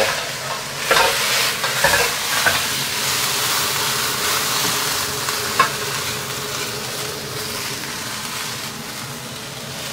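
French beans sizzling in hot oil in a wok as a metal ladle stirs and scrapes them, with a few sharp knocks of the ladle on the pan. The beans are being seared over high heat until their surfaces blister and brown. The sizzle eases a little near the end.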